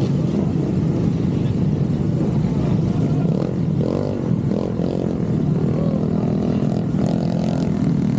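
Motorcycle riding: a steady rush of engine and road noise, with engine tones rising and falling between about three and seven and a half seconds in.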